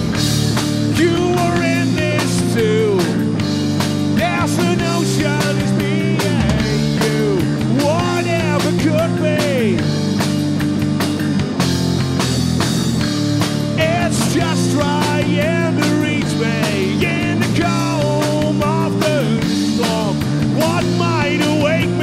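Rock band playing live, with bass, drums and held guitar chords under a lead melody that bends and wavers in pitch.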